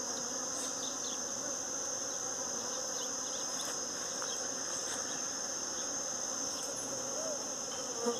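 Many honey bees and native bees buzzing as they work the blossoms of a flowering pitanga (Surinam cherry) tree, a steady hum with a steady high-pitched tone above it.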